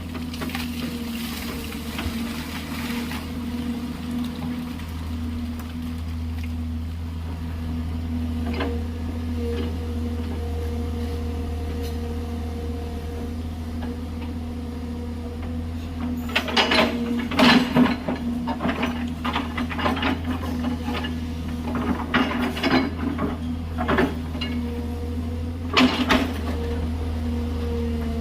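JCB excavator's diesel engine running steadily under load, with bursts of loud clanking and scraping from the bucket working gravelly ground, about halfway through and again near the end.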